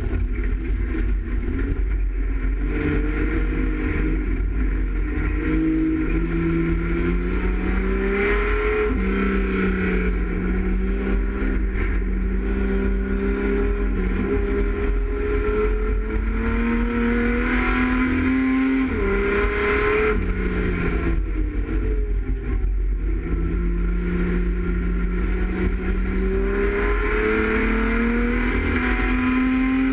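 Dirt-circuit race car's engine heard from inside its stripped cabin, pulling under load with the pitch slowly climbing and then falling back several times as the throttle is lifted for corners, over a constant low rumble.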